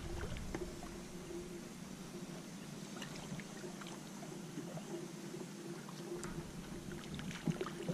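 Light water splashing and trickling at the side of a small boat as a hooked fish is brought alongside and landed, with a few faint clicks.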